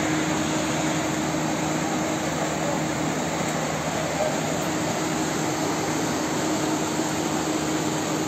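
Steady rushing of muddy floodwater flowing down a street: an even, unbroken noise with a faint low hum under it.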